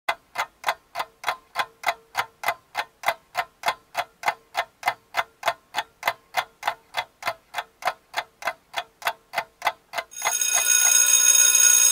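Clock-ticking sound effect, about three ticks a second, giving way about ten seconds in to a steady alarm-like ringing.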